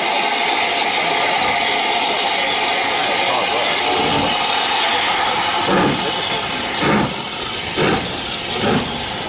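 Maunsell S15 class 4-6-0 steam locomotive No. 847 moving off slowly: a loud steady hiss of steam, then from about halfway slow exhaust chuffs, about one a second, over the hiss.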